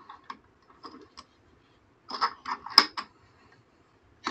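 Hands working a small metal bench vise to clamp a fresh piece of rope: a few light clicks, then a quick cluster of metallic knocks and clatter about two seconds in, and another knock at the very end.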